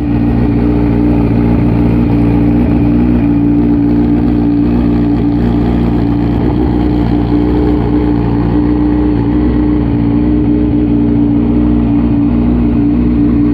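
Suzuki Hayabusa motorcycle's inline-four engine running steadily at a constant speed, loud and even in pitch throughout.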